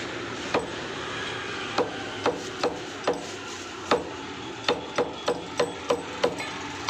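Meat cleaver chopping mutton into small pieces on a thick wooden log block: about a dozen sharp chops, spaced out at first, then coming faster, about three a second, in the second half.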